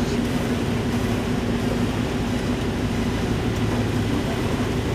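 Inside a bus driving in heavy rain: a steady engine drone with the hiss of tyres on the wet road and rain on the vehicle.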